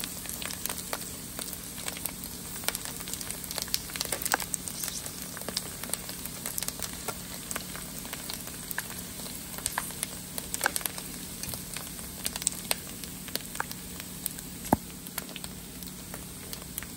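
Pork skin pellets deep-frying in hot oil as they puff up into pork rinds: a steady sizzle with frequent, irregular sharp pops and crackles.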